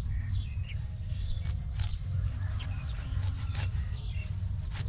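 Grass being pulled up by gloved hands, tearing and rustling in a few short snaps, over a steady low rumble. Faint bird chirps come near the start.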